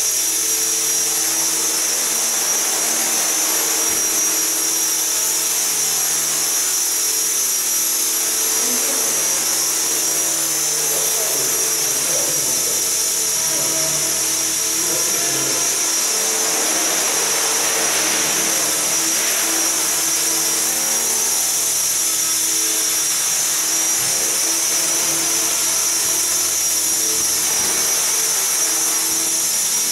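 An Align T-Rex 450 SE V2 electric RC helicopter in flight: a steady, high-pitched whine from its motor and gears together with the whir of the rotor. The pitch shifts a little now and then as throttle and rotor load change.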